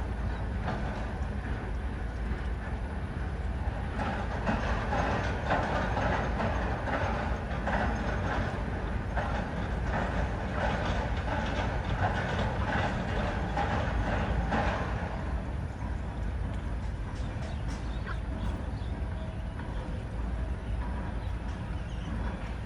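Low rumble of a passing vehicle, with a rattling clatter that builds about four seconds in and fades away after about fifteen seconds.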